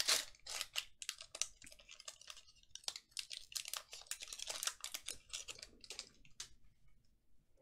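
Foil trading-card pack being torn open and its wrapper crinkled as the cards are slid out and handled: a run of quick crinkles and clicks that stops about six and a half seconds in.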